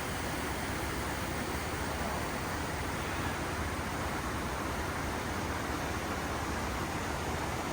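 Rushing water of a creek below: a steady, even hiss with a low rumble underneath.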